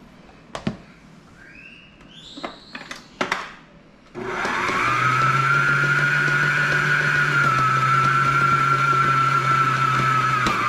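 A few sharp knocks, then about four seconds in an electric stand mixer switches on with a brief rising whine and runs steadily at one speed, mixing flour into lard for pastry dough.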